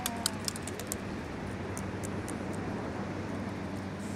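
Steady outdoor background noise, a rushing haze with a low steady hum under it, and a few sharp clicks in the first half-second.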